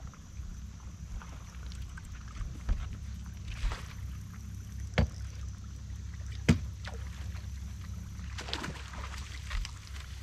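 A hooked bass splashing at the water's surface while it is played and netted, over a steady low rumble. Two sharp knocks about a second and a half apart near the middle are the loudest sounds.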